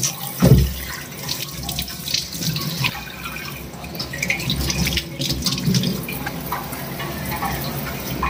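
Kitchen tap running in a spray over a raw green mango held in the hand, water splashing off the fruit and hand into a stainless-steel sink. A short thump about half a second in.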